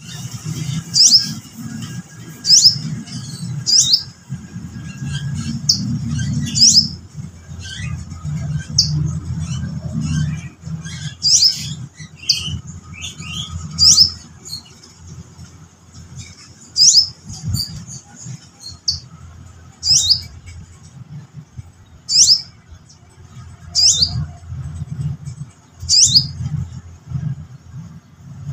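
Sogok ontong bird calling: sharp, high, downward-slurred notes repeated every one to three seconds, some in quick pairs, over a low steady hum.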